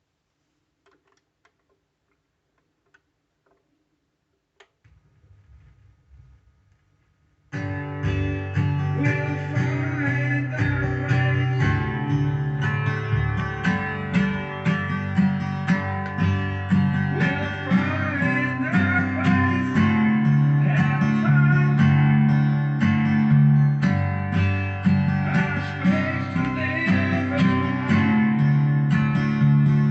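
A few faint clicks in near silence, then guitar music with strumming that starts suddenly about seven and a half seconds in and carries on loudly.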